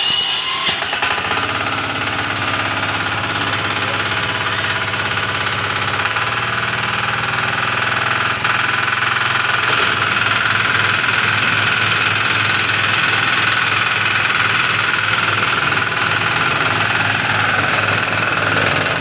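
Small single-cylinder diesel engine of a tamping rammer running steadily just after an electric start at half throttle. Its speed steps up about six seconds in, and the low beat becomes more pulsing from about ten seconds on.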